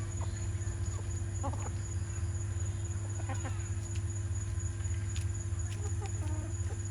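Chickens clucking now and then in short calls, over a steady low hum.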